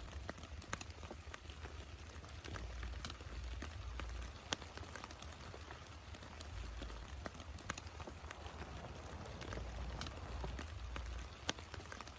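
Rain falling, a steady hiss with scattered sharp drops tapping close by, over an uneven low rumble.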